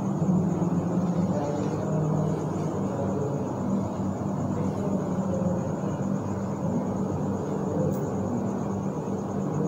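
Steady background noise with a low hum and no clear events.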